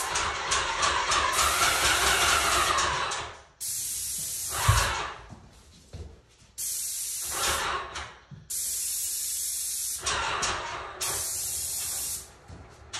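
Graco 495 airless paint sprayer hissing through a 310 fine-finish low-pressure tip as the gun's trigger is pulled and released: about five spray passes of one to three seconds each, with short quiet gaps between.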